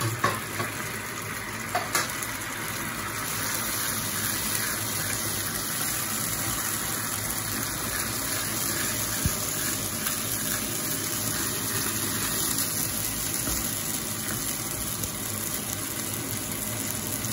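Ground onion, tomato and cashew curry paste sizzling steadily in a non-stick frying pan with green chillies and curry leaves, stirred with a wooden spatula. A few sharp clicks in the first two seconds.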